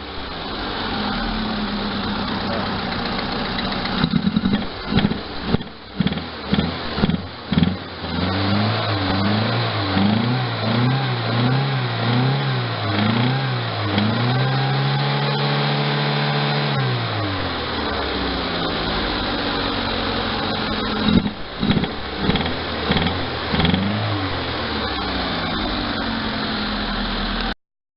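Double-overhead-cam car engine running and being revved during a check for a knocking noise. Its speed rises and falls about once a second, then climbs once higher and drops back about halfway through, with uneven surges. The sound cuts off suddenly just before the end.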